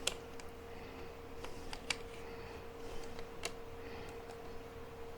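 A small handheld screwdriver working a screw in a laptop's plastic bottom case: a handful of light, sharp clicks and taps, the most distinct about two seconds in, over a steady faint hum.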